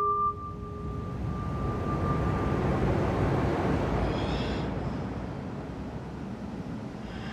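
A steady rushing noise that swells over the first few seconds and then holds, with a ringing tone fading out in the first two or three seconds.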